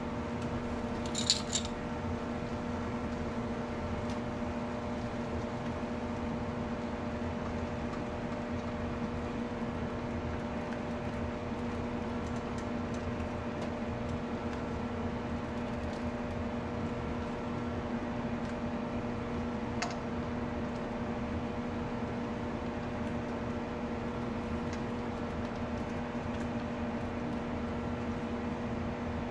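Large stainless stockpot of water at a rolling boil, giving a steady rushing noise over a constant low hum. A short click about a second in and another faint one later, as peaches are dropped in for blanching.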